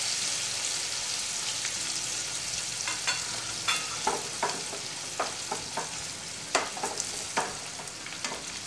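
Idli pieces deep-frying in hot oil in a kadai, a steady sizzle. From about three seconds in, a slotted spoon stirs them and knocks against the pan several times with short sharp clicks.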